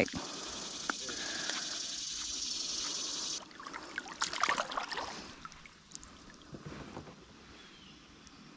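A steady hiss that cuts off suddenly about three and a half seconds in, then a couple of seconds of water splashing and sloshing as a freshly caught smallmouth bass is put into the shallow river.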